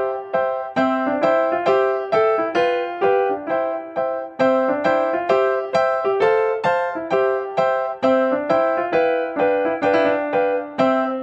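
Background piano music: a steady line of evenly spaced notes, about three a second, each striking sharply and fading.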